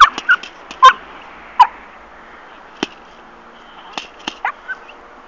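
A run of short sharp cracks and quick yips, loudest and thickest in the first two seconds, with single cracks about midway and a few fainter ones near the end, from a puppy tugging at a jute bite sack being slapped and shaken.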